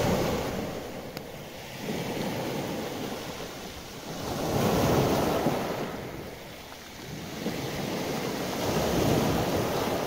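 Sea waves washing onto the shore, the surf swelling and ebbing several times, loudest about five and nine seconds in.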